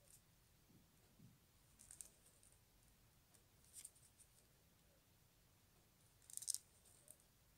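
Three faint clicks from wooden skewers used as knitting needles as stitches are worked in yarn; the last, near the end, is a quick cluster and the loudest.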